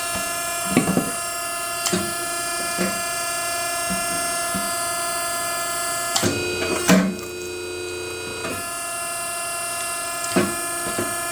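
Homemade hydraulic log splitter running with a steady whine from its motor and pump, with several knocks of wood and metal. A little past six seconds the machine's note changes and deepens for about two seconds, with the loudest knock near seven seconds.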